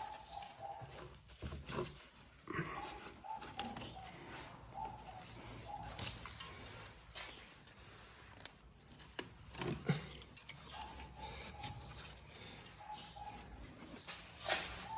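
Scattered knocks and clicks of the removed brake caliper and tools being handled while the caliper is hung up with a fastener, the sharpest knock about ten seconds in. A faint, broken, higher tone comes and goes in the background.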